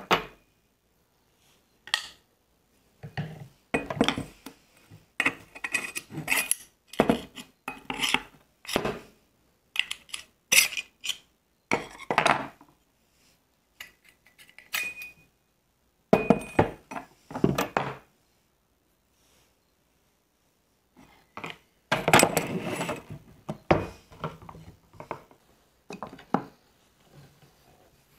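Metal air-rifle parts and tools clinking, scraping and knocking against a wooden table as the gun is taken apart. The noises come in irregular clusters with pauses, and a few strikes leave a short metallic ring.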